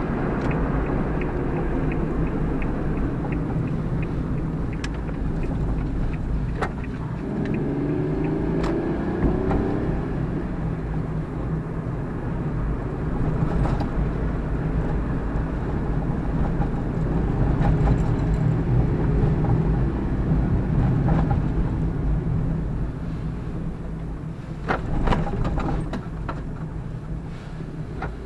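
A car being driven: steady engine and road rumble whose engine pitch rises and falls a couple of times, with a few light clicks and knocks.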